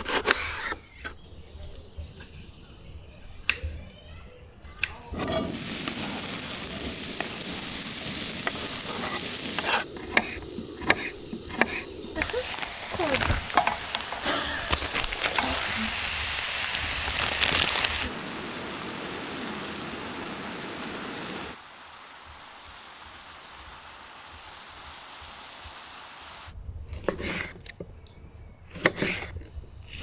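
Food sizzling as it fries: a steady hiss starts about five seconds in, is broken by short gaps, and turns quieter after about eighteen seconds before stopping a few seconds from the end. Scattered clicks and knocks fill the quieter start and end.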